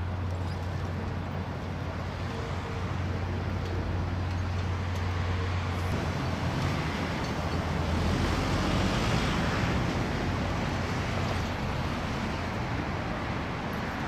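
Steady city traffic noise with a low hum under it, swelling louder about eight seconds in and easing off again a couple of seconds later.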